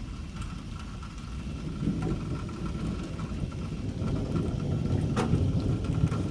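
Thunder rumbling low, swelling about two seconds in and again from about four seconds, with one sharp crack near the end.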